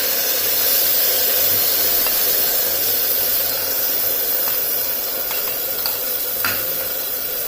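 Onion paste sizzling loudly in hot mustard oil just after going into the pan, the sizzle easing a little over the seconds, with a few light clicks in the second half.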